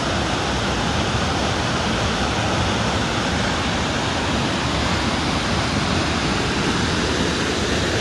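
A waterfall's water cascading down over boulders, a steady rushing sound.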